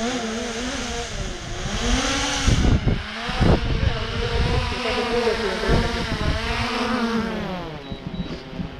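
Quadcopter drone hovering low overhead, its propellers buzzing with a pitch that wavers up and down as it manoeuvres. Rumbling gusts hit the microphone about two to four seconds in, and the buzz fades near the end as the drone moves off.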